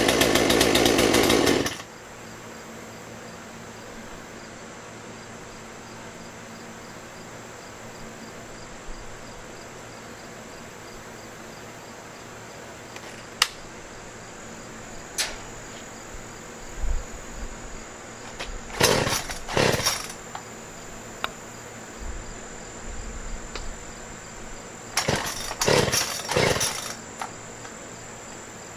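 Poulan P3314 two-stroke chainsaw running loud at high speed for about the first two seconds, then cutting off suddenly. Later come several short loud bursts in twos and threes, over a steady high insect whine.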